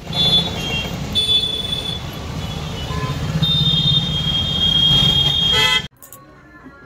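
Busy road traffic on a rain-wet street, motorbike and car engines with tyre hiss, and vehicle horns honking: short honks near the start and about a second in, then a long horn blast from about three and a half seconds until nearly six seconds in. The traffic sound then cuts off suddenly to a much quieter background.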